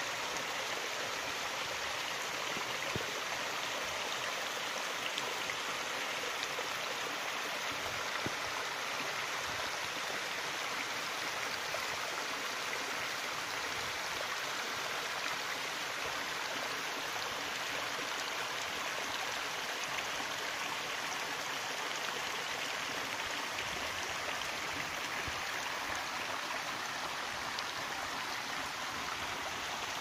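Steady rush of a small waterfall splashing onto rocks and the shallow stream running over stones below it.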